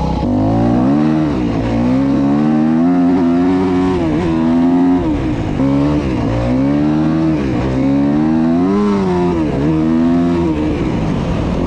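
Yamaha YZ250F motocross bike's four-stroke single-cylinder engine being ridden hard, its pitch climbing and dropping again and again with the throttle.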